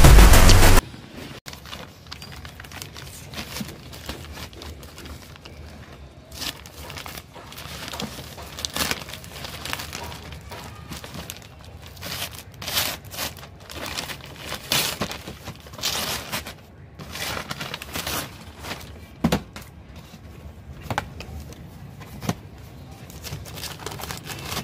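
Paper courier mailing bag being ripped open and crinkled by hand, irregular rustles and tears, then cardboard box flaps and tissue paper rustling. Loud music cuts off under a second in.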